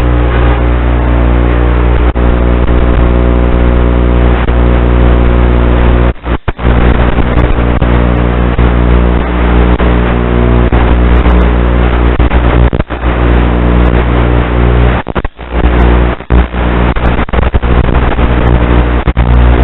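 Small ducted FPV quadcopter's motors buzzing steadily, dropping out briefly twice, about six and fifteen seconds in.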